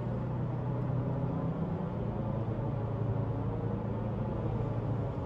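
Subaru Crosstrek's flat-four engine and road noise heard from inside the cabin: a steady low drone while the car accelerates slowly under full throttle, its throttle response dulled by a throttle controller in Eco mode.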